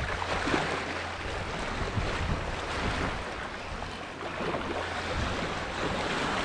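Sea waves washing on a rocky shore, with wind buffeting the microphone.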